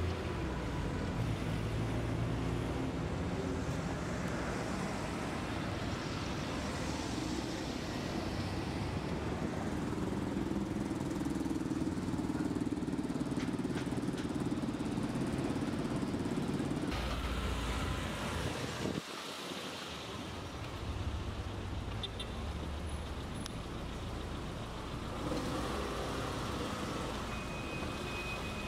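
Street traffic: car engines running and road noise from passing vehicles, a steady rumble of city traffic.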